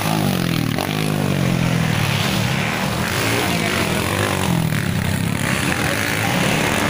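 Motocross dirt bike engine revving, its pitch rising and falling as the bike rides the course.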